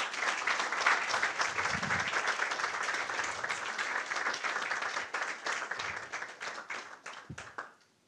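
Audience applauding, a steady patter of many hands clapping that thins out and dies away near the end.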